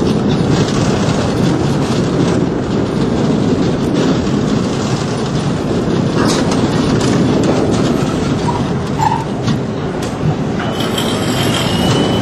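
Bobsled-style roller coaster car rolling along its fibreglass trough: a steady loud rumble with scattered knocks and clicks. A thin high squeal comes near the end as the car runs into the station.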